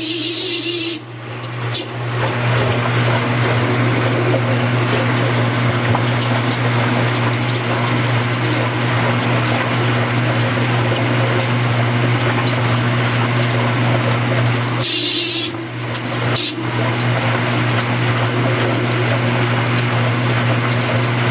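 Amana washing machine running with a steady low hum and a rough grinding noise, broken by brief harsh high-pitched screeches at the very start and about fifteen seconds in. The owner calls it a terrible screeching sound, cause not yet found.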